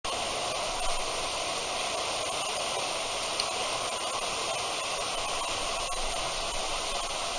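Steady hiss of outdoor background noise, with a few faint ticks.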